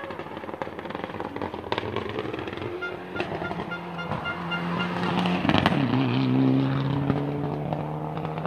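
Rally car engine approaching and passing at speed, revving hard. It grows loudest about two-thirds of the way through, where its pitch drops and then holds steady. Several sharp cracks are scattered through it.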